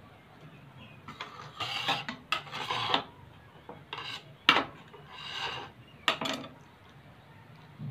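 A kitchen knife blade scraped across a stone countertop in a series of short, rasping strokes, gathering up scraps of soap and slime. A couple of sharp clicks come in the second half as the blade knocks the stone.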